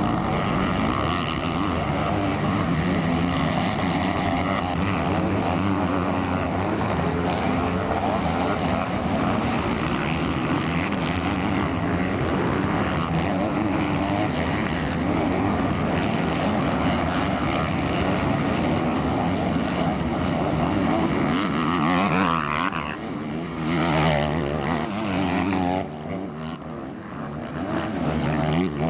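Several motocross dirt bikes racing, their engines revving up and down over one another. The sound dies down somewhat near the end.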